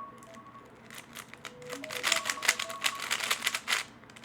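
3x3 Rubik's Cube being turned fast in a speedsolve: a dense, rapid clatter of plastic clicks that builds about a second and a half in and stops just before the end.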